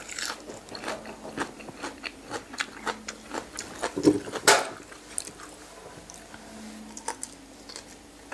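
Crunchy close-up chewing and biting of boiled pig's ear, a run of sharp crisp crunches from the cartilage, with one louder click about halfway through.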